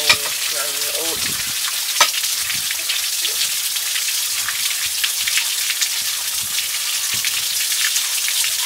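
Small stone waterfall fountain splashing onto rocks, a steady crackling hiss of falling water. Two sharp clicks stand out, one at the very start and one about two seconds in.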